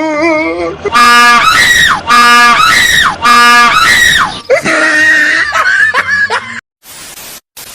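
A person screaming. The same loud scream comes three times in a row, each about a second long and rising in pitch at its end, followed by shorter wavering shrieks, then cut off abruptly near the end.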